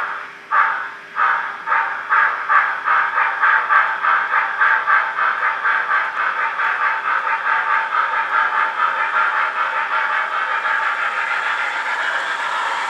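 Recorded steam exhaust of a GWR Castle class locomotive played by a model's DCC sound decoder and small speaker: the chuffs start slow and quicken steadily as the locomotive pulls away, until by near the end they run together into an almost continuous beat.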